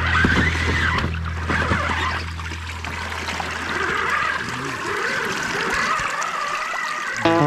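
Water splashing and trickling as a Vanquish VS4-10 Pro RC crawler drives through a shallow creek, its tyres churning the water. Under the splashing, the electric drivetrain whines, wavering up and down in pitch as the throttle changes.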